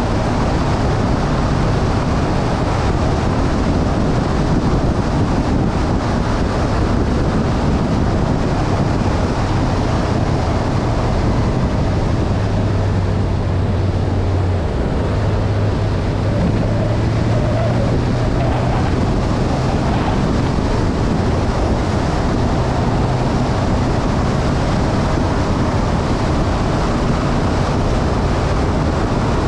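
Motorbike engine running at a steady cruise, a low drone that shifts slightly in pitch about halfway through, under heavy wind noise on the microphone from the ride.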